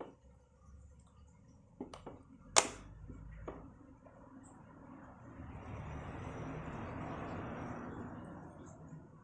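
Small clicks and one sharp snap from laptop parts being handled, followed by a longer rustling noise that swells and fades.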